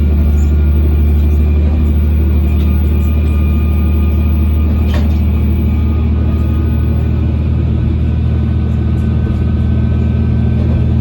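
KiHa 120 diesel railcar running along the line: a steady low engine drone with wheel and rail noise, and a couple of faint clicks from the track.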